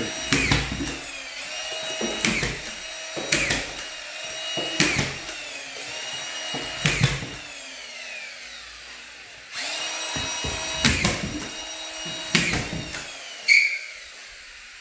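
Collated drywall screw gun driving screws into drywall one after another. Each drive is a sharp clack over the motor's whine, and the whine falls in pitch as the motor spins down between screws. From about halfway through, the motor runs on without stopping while three more screws go in.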